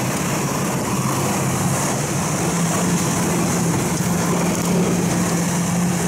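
Engine of an Uragan Taiga 2000 motorized snow pusher (motodog) running steadily at an even pitch while it is ridden through snow.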